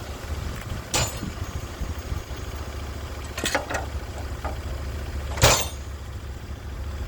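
Sawmill engine running steadily at a low drone, with three sharp knocks cutting through: about a second in, midway, and the loudest near the end.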